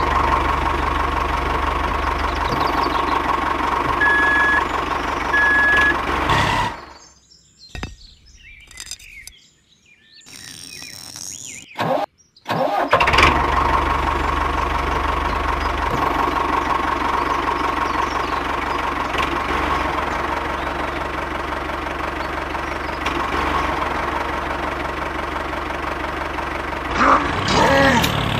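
Small tractor engine running steadily, with two short high beeps about four and five and a half seconds in. The engine sound drops out for about five seconds in the middle, leaving only faint scattered noises, then resumes and runs on, swelling briefly near the end.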